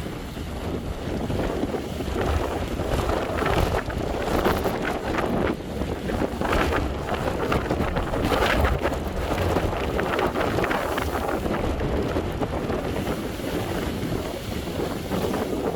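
Ocean waves surging and breaking against a breakwater in strong wind. Heavy wind buffets the microphone with a low rumble, and the surf swells in repeated surges.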